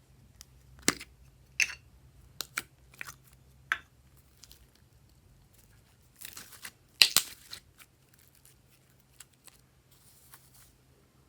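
Glossy slime being pressed and played with by hand, giving irregular sharp sticky clicks and pops, with the loudest about seven seconds in.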